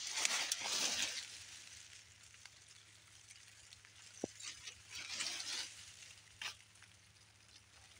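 Leafy bushes rustling as they brush against a passing person, in two bursts: one at the start lasting about a second and another about five seconds in, with a few small clicks in between.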